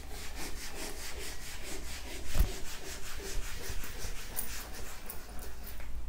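Blackboard duster rubbing chalk off a blackboard in quick back-and-forth strokes, several a second, with one knock against the board about two and a half seconds in.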